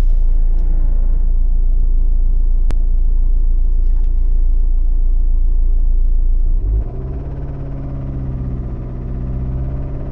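2009 Ford Focus 1.8 TDCi diesel engine running with a loud steady low hum, then raised to higher revs about two-thirds of the way through and held there. The owner reports a strange extra noise from the engine when the revs rise.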